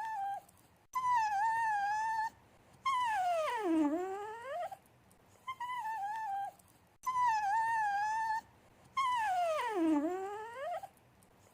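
Dog whining and whimpering for attention, a begging, affectionate whine. Short high whines that hold near one pitch alternate with longer whines of about two seconds that slide down in pitch and back up.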